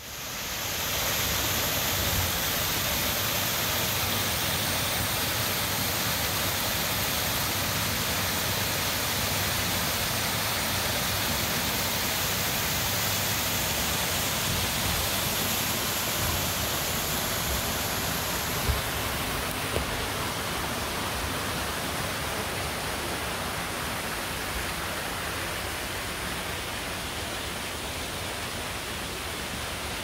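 Steady rushing noise of water tumbling down a small rocky cascade waterfall. Its tone dulls a little about two-thirds of the way through.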